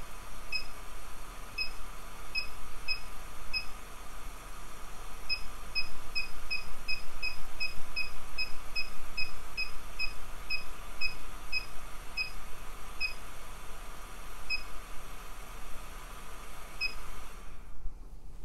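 Blower fan of a BBQ Guru DigiQ DX2 temperature controller running with a steady hum, then cutting out about a second before the end. This is the controller starting to switch the fan off as it nears the set temperature. Over it come many short high beeps, scattered at first, then about three a second for several seconds.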